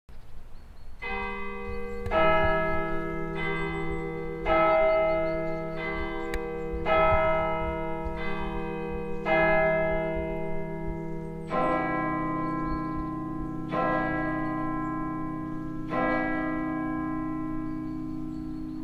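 Abbey tower clock striking three o'clock on church bells: eight strikes, the quarter chimes, then three slower strikes on a deeper hour bell, each left to ring on.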